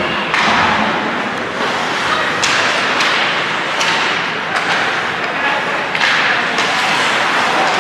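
Repeated thuds, about ten of them at uneven spacing of roughly half a second to a second, over a loud, steady din of voices and noise, as at a team sports game.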